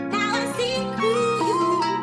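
Background music: plucked-string instrumental with melodic notes changing every fraction of a second.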